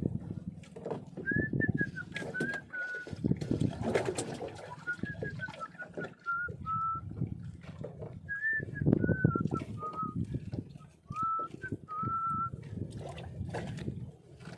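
A person whistling a slow tune in short, gently falling phrases, over irregular low rustling and knocking from handling.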